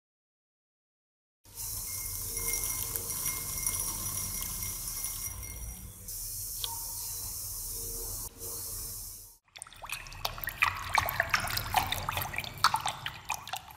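Liquid poured in a stream into a glass bowl of powder, a steady pouring and fizzing hiss that starts about a second and a half in and stops about nine seconds in. Then a rod stirs the mixture, with quick, irregular clinks and scrapes against the glass.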